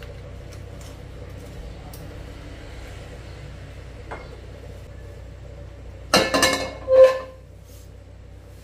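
Kitchenware clinking: a quick run of clinks about six seconds in, then one louder ringing clink a second later, over a steady low hum.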